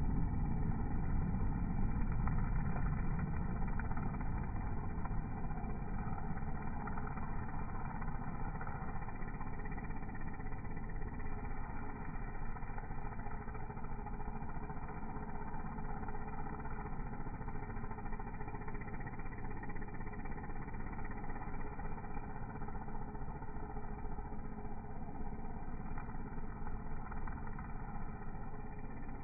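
Gas string trimmer engine running steadily while cutting grass, slightly louder in the first few seconds.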